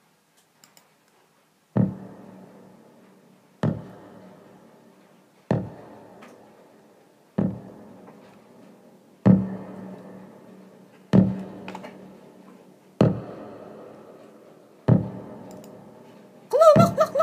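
Music: after a short silence, a low struck keyboard chord repeats about every two seconds, each one ringing and dying away. A voice comes in near the end.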